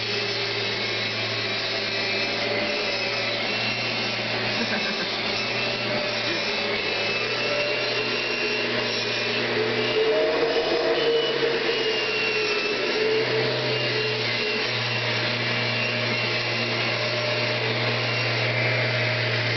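Vacuum cleaner motor running steadily, a low hum under a hissing rush with a faint whine. About halfway through its note shifts and it grows briefly a little louder.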